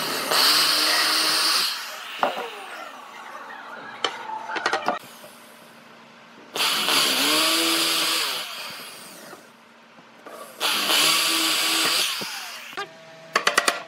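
Electric drill with a twist bit boring holes through a round wooden rod, in three runs, its motor spinning up and winding down each time. A rapid string of clicks starts near the end.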